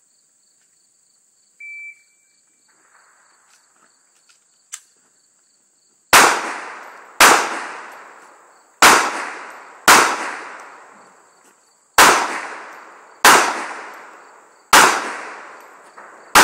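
A shot timer's short beep, then about four seconds later eight pistol shots at an uneven pace, one to two seconds apart, each ringing out with a long echo. Insects buzz steadily throughout.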